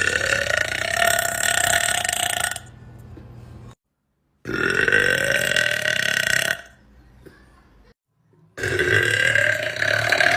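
Three long, loud belches from girls, one after another, each lasting two to three seconds with a pitch that rises slightly, separated by short silences.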